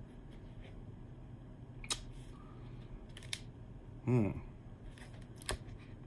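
A few sharp clicks and light taps from a pen presentation box and its packaging being handled and opened.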